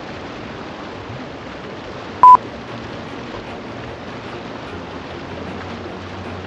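A single short, very loud electronic beep, one pure steady tone, about two seconds in, over a steady, even rushing background noise.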